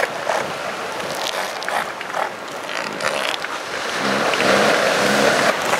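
Northern elephant seals calling during a mating attempt over steady surf; about four seconds in comes a louder, low, pulsing call lasting over a second.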